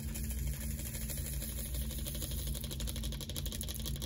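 A stream of tiny resin diamond-painting drills pouring from a plastic funnel tray into a plastic storage container: a continuous fine rattle of many small beads.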